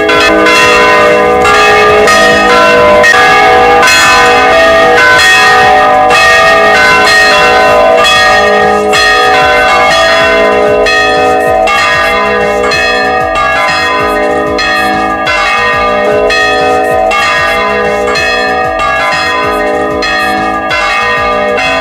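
Church bells ringing, several bells of different pitch struck in quick, even succession so that their tones overlap and hang on.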